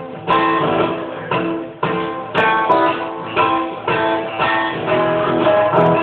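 Guitar played live, chords strummed in a steady rhythm at about two strokes a second, with no singing.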